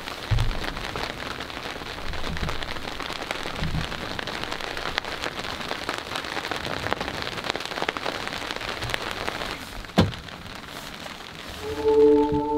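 Soft sleet, small pea-sized pellets, falling steadily, with many small sharp ticks as they hit. A single sharp click about ten seconds in, then calm music with long held tones comes in near the end.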